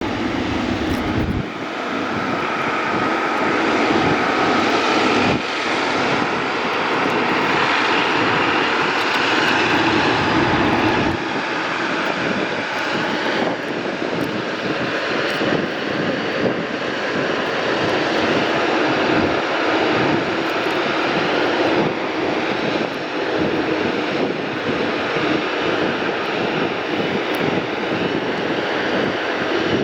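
Boeing 777F freighter's twin GE90 turbofan engines running at high thrust on takeoff: a loud, steady jet roar.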